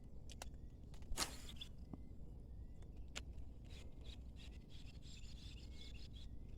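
Faint outdoor ambience: a steady low wind rumble with distant birds chirping, broken by a few sharp clicks, the loudest about a second in.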